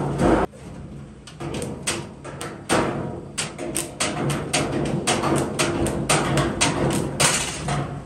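Repeated, irregular hammer blows and knocks on metal, about two or three a second after a short lull near the start, over a steady low hum.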